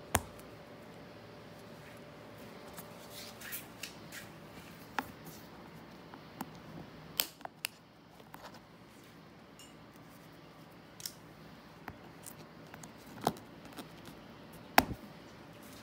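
Metal staples being pried and pulled out of a vinyl-covered door panel with a screwdriver and pliers: scattered sharp clicks and snaps of steel tools on the staples, the loudest about a second before the end.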